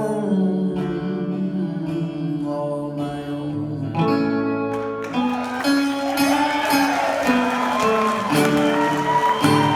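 Live band playing the closing bars of a slow song: guitar chords ring out under a held sung note, the music swelling again about five seconds in.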